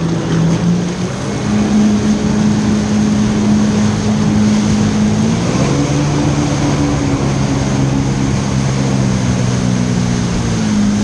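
Jet ski engine running at speed while towing a biscuit tube, over the rush of its water jet and spray. Its note steps up about a second and a half in, shifts again around the middle, and once more near the end.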